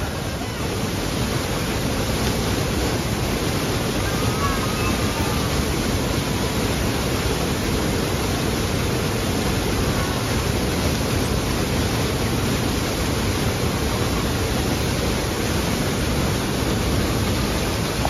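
Waterfall pouring over rock into a churning plunge pool: a loud, steady rush of falling water.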